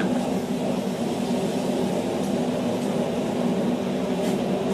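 Forge running steadily: an even rushing noise over a low hum.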